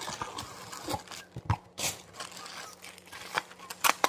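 Unboxing a heating pad: a cardboard box being tipped and handled and the plastic-wrapped pad slid out onto the counter, making irregular rustles, scrapes and a few sharp knocks, with plastic wrap crinkling under the hands near the end.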